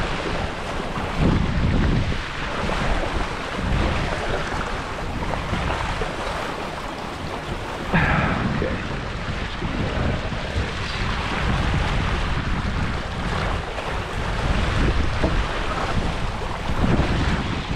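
Wind buffeting the microphone and water rushing past the hulls of a Hobie Getaway beach catamaran under sail in a gust, rising and falling in loudness. A sudden louder burst comes about eight seconds in.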